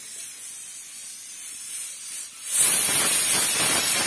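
Aluminium stovetop pressure cooker on a wood fire: a faint hiss of steam, then about two and a half seconds in the weight valve blows and vents steam in a sudden loud, rough hiss that carries on. This is the cooker's whistle, the sign that it has come up to pressure.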